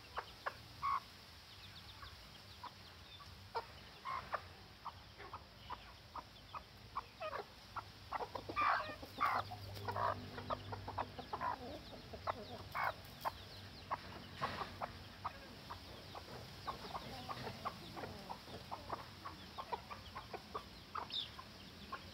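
Chickens clucking in short, separate calls that come thickest and loudest in the middle stretch.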